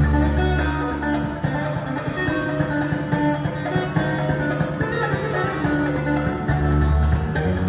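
Electric guitar played live through stage speakers: a busy run of quickly plucked notes over deep held bass notes that swell at the start and again near the end.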